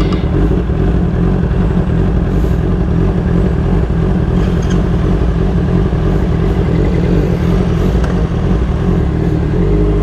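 Motorcycle running on the move, a steady low rumble with no letup.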